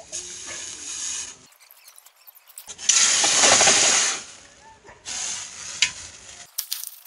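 Hot forged steel chopper blade being quenched in a tub of water: a sizzling hiss of steam with churning water. It is loudest for about a second and a half starting roughly three seconds in, as the blade is swept through the water, with quieter hissing before and after.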